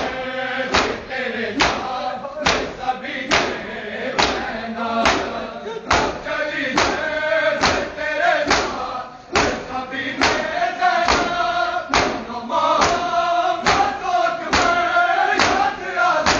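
Men chanting a noha together while beating their bare chests in unison, each stroke a sharp slap landing a little more than once a second under the steady chant.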